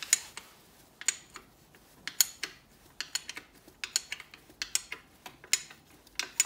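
Hand wrench working the gearbox bellhousing bolts loose on an Alfa Romeo 159 engine, giving irregular sharp metallic clicks and clinks, a dozen or more spread out. The bolts are being undone slowly by hand, not with an impact gun.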